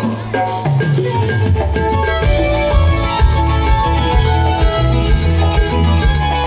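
Band playing dance music with a steady beat and a repeating bass line.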